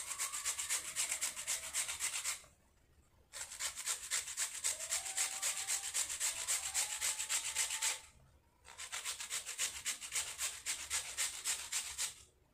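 A peeled potato grated on a flat metal hand grater: rapid, even rasping strokes in three runs, with two short pauses, about two and eight seconds in.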